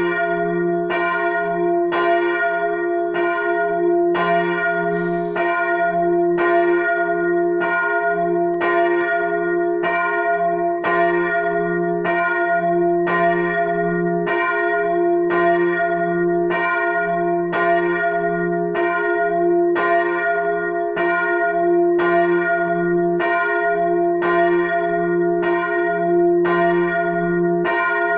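The large bell (bell 1, tuned to f') of a church tower, swinging alone and struck by its clapper in a steady, even rhythm, the strokes about three-quarters of a second apart, each ringing on over the next. This is the bell's call to worship half an hour before the service.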